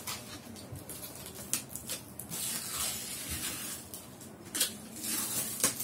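Cardboard packaging being handled and worked open: scraping, sliding rustles with a few sharp taps and clicks.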